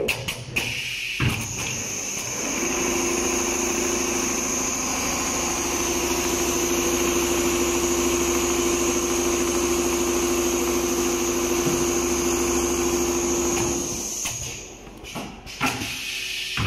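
Computerized pattern sewing machine stitching leather: it runs up a couple of seconds in and then runs steadily, a hum and a high whine over rapid needle strokes, before stopping near the end. A few clicks come at the start and just after it stops.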